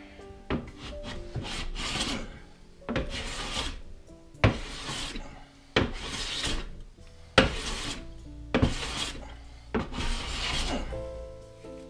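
Hand plane shaving a wooden board: about eight push strokes, each a brief hiss of the blade cutting that starts sharply as the plane bites, used to plane down a ridge and flatten the board. Soft background music runs underneath.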